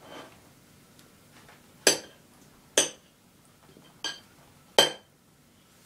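A table knife cutting through a block of butter and striking the ceramic plate beneath: four sharp clinks with a short ring, roughly one a second.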